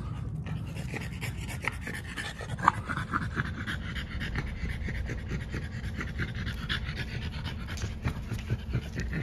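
French Bulldog puppy panting rapidly and steadily.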